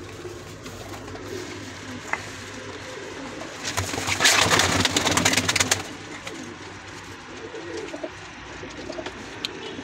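A flock of domestic pigeons cooing in low, repeated coos. About four seconds in comes a louder rustling flurry that lasts about two seconds.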